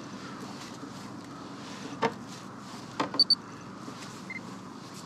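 Fishing tackle being handled on a small boat: a few sharp clicks and knocks of rod and reel, two of them in quick succession about three seconds in, over a steady low hum.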